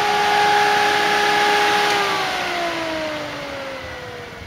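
A 12-inch, 12 V 120 W electric radiator cooling fan running with a steady whine over a rush of air. About two seconds in it is switched off, and its whine falls steadily in pitch as it spins down.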